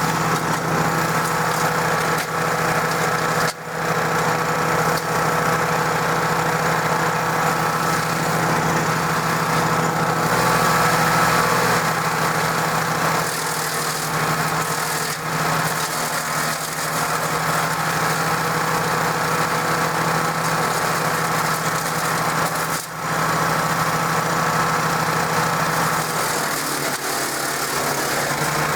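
DR 16.5 self-feeding wood chipper running steadily, its Briggs & Stratton engine spinning the heavy flywheel. The engine note dips briefly twice and drops a little near the end.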